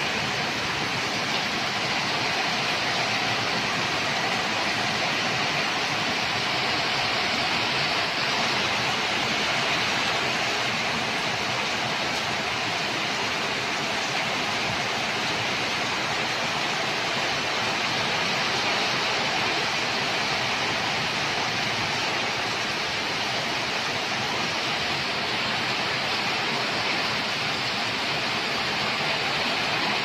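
Heavy thunderstorm downpour: a steady, even rush of rain falling on leaves and pouring off the roof edge.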